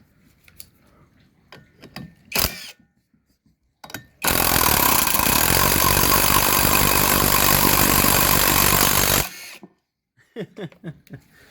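Cordless brushless impact driver spinning the bare crankshaft of a stripped-down small engine, turning the piston and flywheel with no oil in it. A short blip of the trigger about two seconds in, then a steady whining run of about five seconds that stops suddenly.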